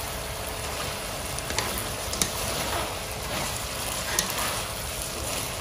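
Frying tauco sauce sizzling in a wok while a wooden spatula stirs fried fish, tofu, tempe and long beans through it. A few sharp taps of the spatula on the pan stand out.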